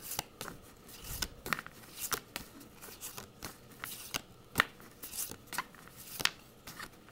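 Pokémon trading cards being handled and flipped through: irregular sharp clicks and light swishes of card against card, the sharpest a little past the middle.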